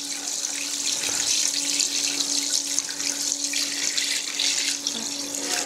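Whey poured in a steady stream from a stainless steel pan into a cheese vat, splashing into the whey already there, topping it up so the cheese mould is covered.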